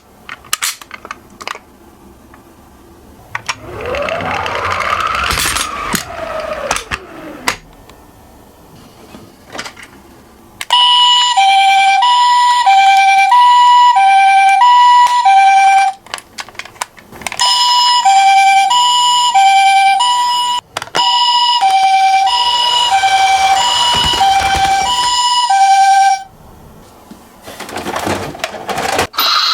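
Toy ambulance's two-tone hi-lo siren, Japanese ambulance style, alternating a higher and a lower tone about every 0.6 s. It plays in two long stretches with a short break between. Before it come a few sharp clicks and a sound that rises and then falls in pitch.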